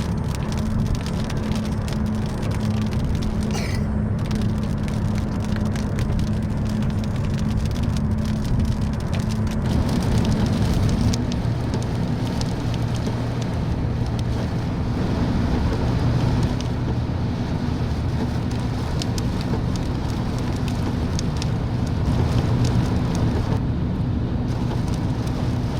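Heavy rain falling, with scattered ticks of drops hitting a surface, over the steady low hum of a running vehicle.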